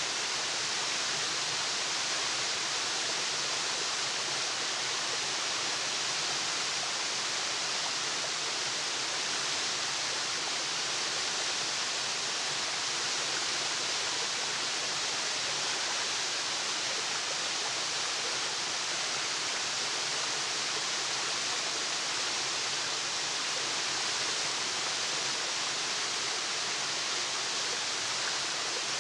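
Waterfall: a steady, even rush of falling water, strongest in the high hiss.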